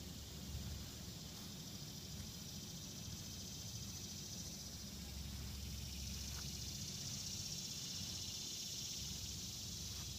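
Steady, high-pitched drone of an insect chorus, growing louder about halfway through, over a faint low rumble on the microphone.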